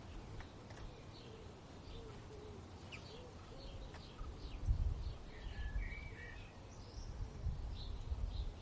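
Faint outdoor ambience with birds chirping: scattered short chirps and trills over a low rumble that swells briefly about halfway through.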